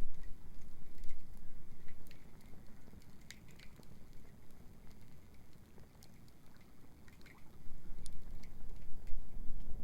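Wood bonfire crackling with scattered sharp pops over a low rumble. The rumble eases in the middle and swells again near the end.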